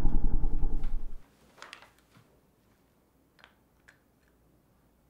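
A monster's low, rough, pulsing growl answers from under the bed and fades out about a second in, followed by a few faint soft ticks and rustles.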